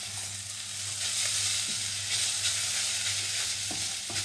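Shredded chicken sizzling in a little fat in a stainless steel saucepan while a wooden spoon stirs it, with a few light knocks and scrapes of the spoon against the pan. A steady low hum runs underneath.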